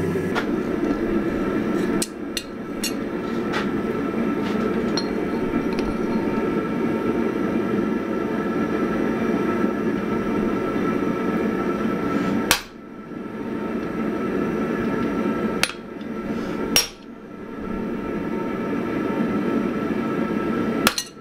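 Hammer blows on a hand-held hot chisel driven into a glowing Damascus steel billet on an anvil, scoring it so it can be folded and re-welded. A few light taps come early, then three heavier strikes spaced a few seconds apart and one more near the end, all over a steady low noise.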